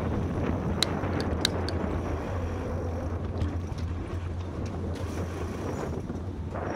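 Bicycle riding along a paved towpath, heard from a bike-mounted camera: wind buffeting the microphone over the rolling of the tyres, with a few sharp clicks from the bike about a second in.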